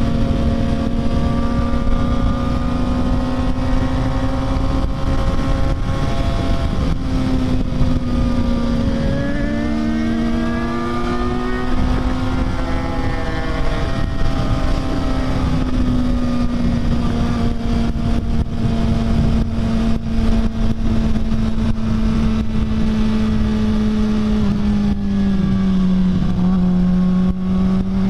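Sport motorcycle engine running at a steady highway cruise, its note holding nearly level with small rises and dips in pitch, under a constant rush of wind noise.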